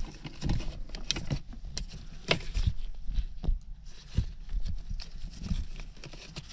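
Gloved hands handling wiring inside a car seat's metal seat-back frame: irregular clicks, taps and rustling as the spliced wires are tucked in.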